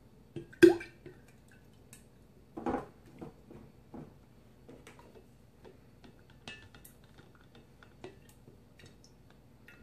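Measuring cup knocking and tapping on the rim of a glass mason jar while ketchup is scraped out of it with a silicone spatula: a sharp knock under a second in, a softer one near three seconds, then light scattered clicks.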